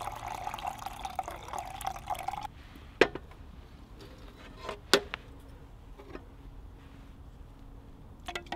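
Hot water poured from a kettle into a mug, filling with a steady pitched trickle that stops about two and a half seconds in. Then two sharp knocks about two seconds apart as the kettle goes down on a metal camp table, and near the end a spoon starts clinking as it stirs in the mug.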